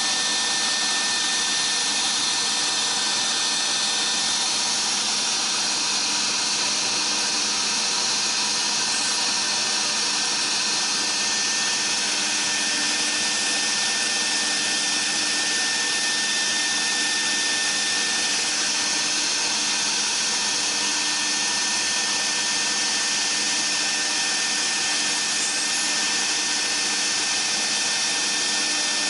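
Dual-spindle CNC router's HSD spindles running at speed while a router bit cuts 5 mm aluminium composite panel (aluminium–polyethylene–aluminium): a steady high spindle whine over a constant hiss of cutting, with no change in pace.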